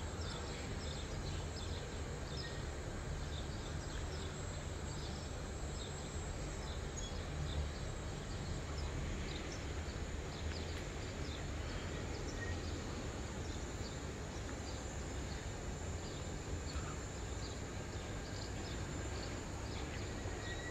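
Morning city ambience heard from a high balcony: a steady low hum of the city, with many small birds chirping in short calls throughout, and a faint steady high-pitched tone.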